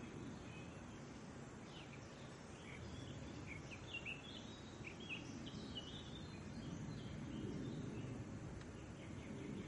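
Woodland birds chirping: a scatter of short, high chirps and trills through the first half, over a steady low outdoor background noise that grows slightly louder near the end.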